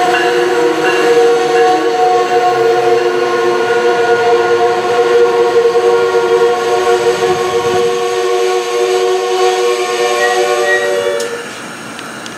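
Brakes of Amtrak Northeast Regional passenger cars squealing with several steady high tones as the train slows to a stop at the platform. The squeal fades out a little before the end as the cars come to rest.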